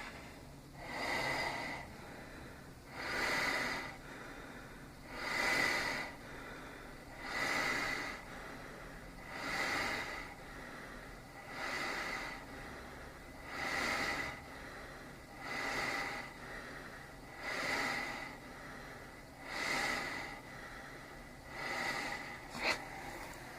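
ResMed AirMini travel CPAP blowing air at 10 cmH2O. Its hiss swells and fades about every two seconds as the airflow rises with each breath, with a high whine in each swell. A single sharp click comes near the end.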